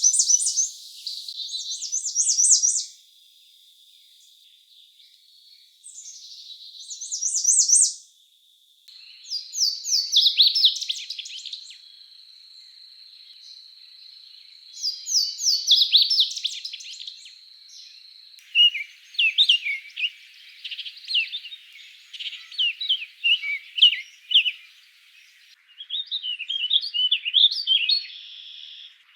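Songbirds singing. Short, fast, high song phrases repeat every few seconds over a steady high tone, then after about 18 seconds give way to a busier stream of rapid chirps and chatter.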